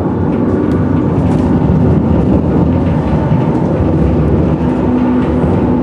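Tram running, a loud steady rumble heard from inside the car.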